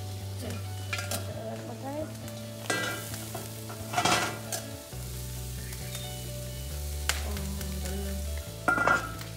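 Rib-eye steaks sizzling on an open grill grate, with a few sharp metallic clinks as steel tongs lift domed metal lids off the meat. Low steady bass notes that shift pitch every couple of seconds run underneath.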